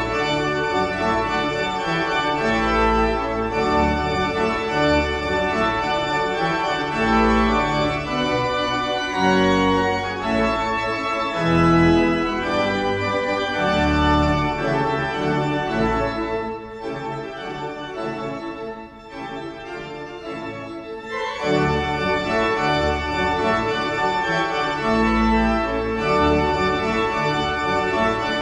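Organ postlude after the benediction: full organ chords held over changing bass notes, easing to a softer passage about two-thirds of the way through before the full sound returns.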